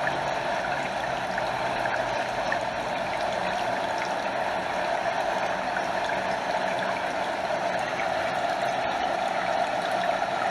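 Stream water flowing steadily over a small waterfall, an even rushing with small trickles and gurgles throughout.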